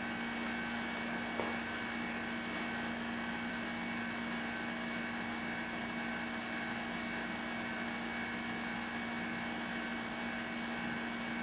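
Steady electrical hum with a constant hiss behind it, with one faint tick about a second and a half in.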